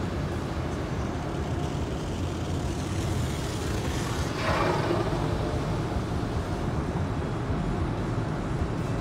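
Automatic car wash heard from inside the car: a steady rush of water and foam on the windshield over a low rumble, with a louder spray sweeping across about four and a half seconds in.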